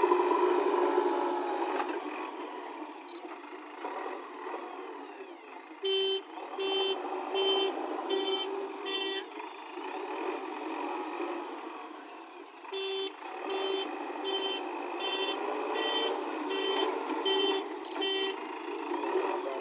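Reversing alarm beeping in two runs, about five beeps and then, after a pause of a few seconds, about nine more, at roughly one and a half beeps a second, over steady background noise.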